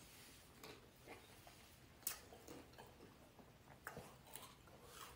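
Near silence: room tone with a few faint short clicks, the clearest about two seconds in.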